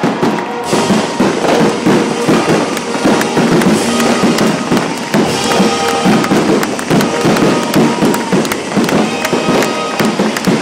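Fireworks barrage: rapid, overlapping bangs and crackling from many shells and ground effects at once. A live symphony orchestra plays underneath.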